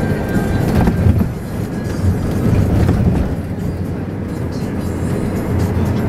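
Low, steady road and engine rumble heard from inside the cabin of a moving minibus, with music playing along with it.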